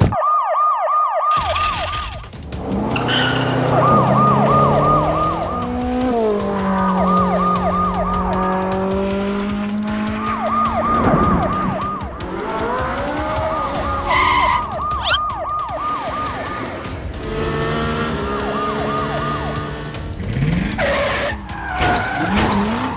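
Police car siren in a fast yelp, a quick rise and fall repeated several times a second, starting and stopping in several bursts, with lower sliding tones between the bursts.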